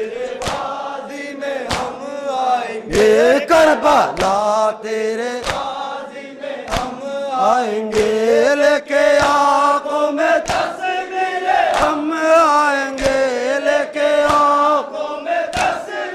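A crowd of men chanting a noha, a Muharram lament, in unison. Sharp slaps come every one to two seconds, which fit hands beating on chests in matam.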